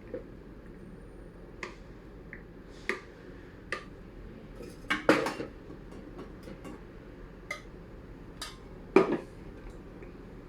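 Cups, dishes and utensils clinking and knocking against each other: scattered sharp clinks, the loudest about five and nine seconds in.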